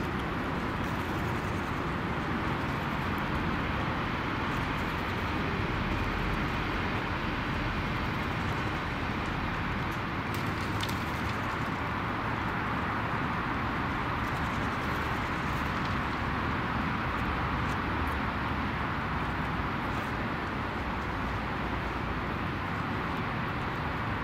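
Steady outdoor background noise, an even hiss and hum with no clear pitch, with a few faint ticks around the middle.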